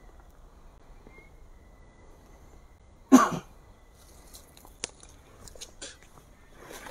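A person coughs once, short and loud, about three seconds in. Faint rustling and a few small clicks follow as people shift about in the brush.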